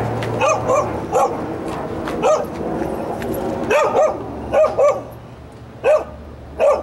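A dog in a parked car barking loudly in short, sharp barks, about ten of them, many coming in quick pairs.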